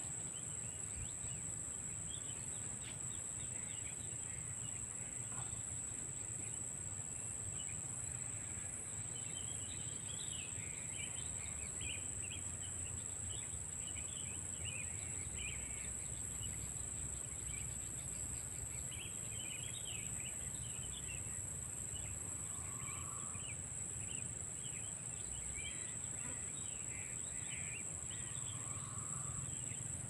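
Steady, high-pitched chorus of crickets and other insects, with faint scattered chirps over it.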